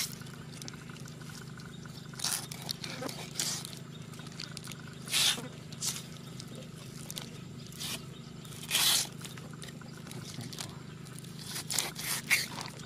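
A knife scraping and slicing through a raw fish on a wooden chopping board, in several short scraping strokes a few seconds apart, over a steady low hum.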